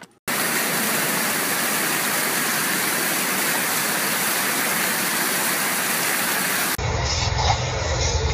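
A loud, steady rushing noise that starts abruptly and cuts off after about six and a half seconds. Music with a strong steady bass follows near the end.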